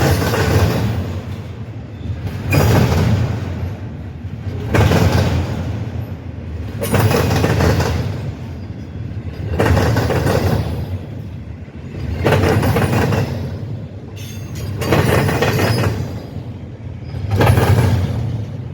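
Railroad cars rolling past, their wheels clattering over a rail crossing diamond in a steady rhythm, one loud clatter about every two seconds as each car goes over.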